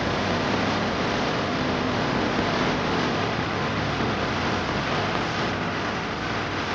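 Road traffic going by, a steady rush of engine and tyre noise, with no horn sounding.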